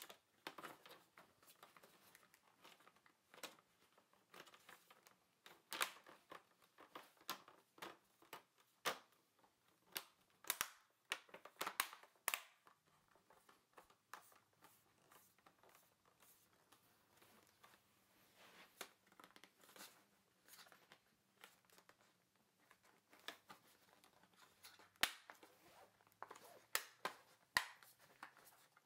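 Plastic screen bezel of an HP G71 laptop being pressed back onto the display lid by hand, its clips snapping into place in an irregular string of sharp clicks and plastic crackles.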